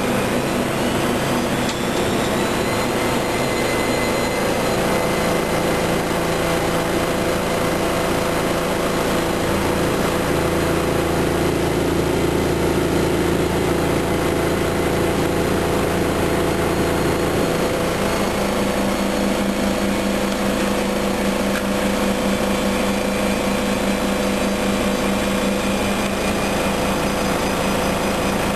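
Washing machine running, its motor giving a steady hum and whine. Over the first few seconds a whine rises in pitch as the drum speeds up, then holds steady, with the lower hum shifting pitch a few times.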